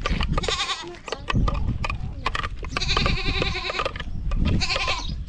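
Livestock bleating: three quavering calls, the longest about three seconds in, over scattered light clicks and knocks.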